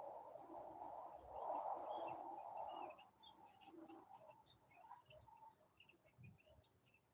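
An insect's steady, high, finely pulsing trill runs through, cricket-like. A soft lower hiss sits under it for the first three seconds and then drops away, after which faint short bird chirps come and go.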